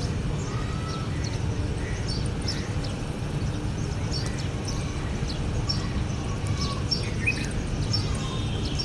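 Budgerigars chirping: many short, high chirps in quick succession over a steady low background rumble.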